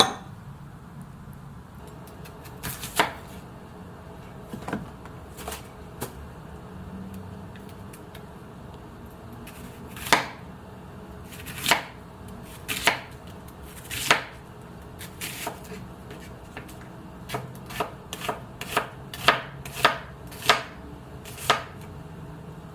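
Knife chopping on a cutting board: single sharp chops spaced well apart at first, then coming quicker, about two a second, near the end, over a low steady hum.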